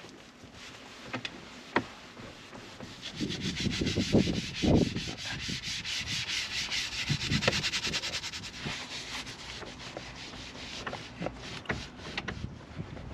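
Rapid scrubbing on a surface, a fast even rasp of back-and-forth strokes that is heaviest from about three to nine seconds in, with a few soft knocks near the start of it and scattered light clicks afterwards.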